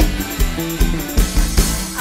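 Live Isan mor lam band playing an upbeat tei dance tune with a steady kick-drum beat, in an instrumental passage between sung lines.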